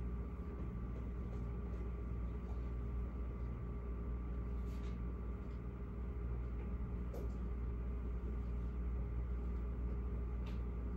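Steady low electrical hum of room machinery, with a few faint clicks.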